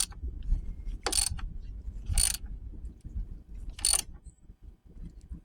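A man sniffing three times with a runny nose from a cold, over a steady low rumble.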